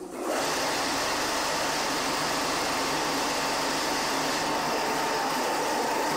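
Industrial sewing-workshop machinery running: a loud, steady whirring rush with a faint constant whine. It starts abruptly and cuts off about six seconds later.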